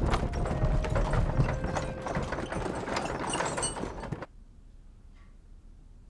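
Horse-drawn wooden cart rolling: a busy clatter of hooves, rattling wheels and harness over a low rumble, cut off abruptly about four seconds in, then faint room tone.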